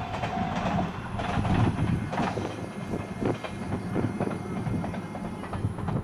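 A JR Hachikō Line diesel railcar of the KiHa 110 series running past at a level crossing: a steady rumble with its wheels clacking irregularly over the rail joints.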